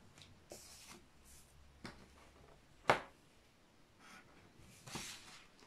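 Pen strokes scratching softly on paper along a plastic ruler, with a few light taps as the ruler and pen are moved; a sharp tap a little before three seconds in is the loudest sound.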